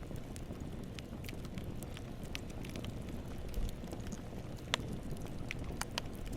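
Campfire burning: wood crackling in sharp, irregular snaps over a steady low rumble of the flames, with one louder snap about three-quarters of the way through.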